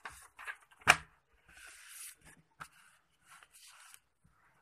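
A sheet of paper handled and laid down on a wooden table: a sharp knock about a second in, then two spells of soft rustling and sliding paper.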